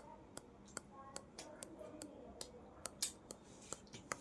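Close-miked eating of chicken korma with tandoori roti: sharp, wet mouth clicks and smacks from chewing, a few each second at an uneven pace.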